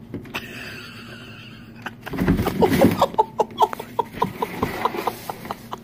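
A person laughing in quick, repeated bursts, starting loudly about two seconds in after a few quieter seconds with light clicks.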